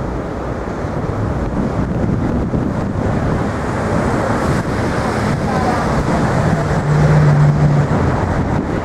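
City street traffic noise with wind buffeting the microphone. A low engine hum swells near the end as a vehicle passes close by.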